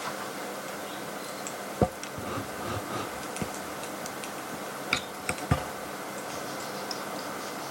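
Steady background hiss with a few scattered sharp clicks and light knocks, the loudest about two seconds in and a quick cluster about five seconds in.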